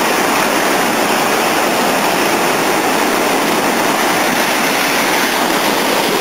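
Seawater surging and streaming over shoreline rocks: a loud, steady rush that does not let up.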